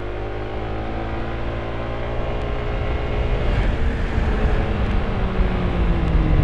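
Honda ADV 160 scooter's single-cylinder engine running under way at a steady speed over a low rumble, its pitch easing down slowly near the end.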